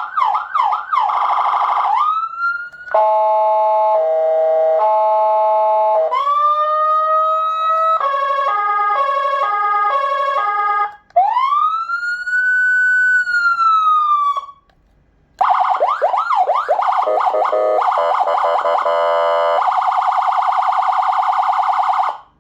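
SA920 200W electronic vehicle siren stepping through its tone programs over a speaker: fast repeated yelp sweeps, a two-tone hi-lo, a stepped several-note pattern and a slow rise and fall. After a pause of about a second it goes on with fast sweeping and pulsing tones, then cuts off suddenly just before the end.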